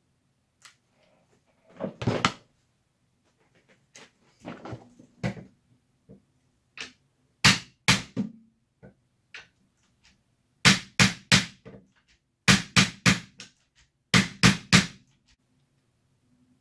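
Hammer blows on a bar clamp, driving a tight-fitting polycarbonate tube into place. Sharp knocks, a few scattered at first, then quick clusters of two to four that come more often toward the end.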